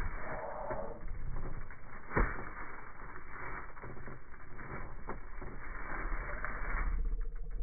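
Plastic food bags crinkling and rustling as a hand rummages through a small fridge's wire shelves, with scattered small clicks and one sharp knock about two seconds in.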